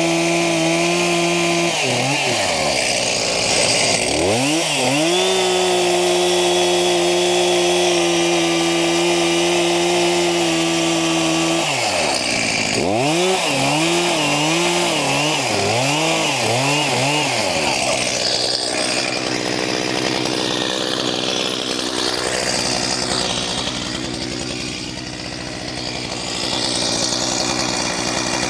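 Two-stroke chainsaw revved up and held at full throttle in two long runs, then blipped up and down several times in quick succession. In the last ten seconds or so the clear engine note gives way to a rougher, steady noise.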